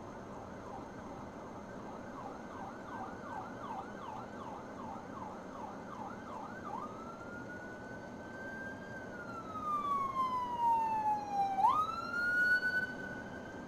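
Emergency vehicle siren heard over steady road noise. First a fast yelp, about three up-and-down sweeps a second, then from about seven seconds in a slow wail that rises, falls and jumps back up sharply. It grows loudest in the last few seconds.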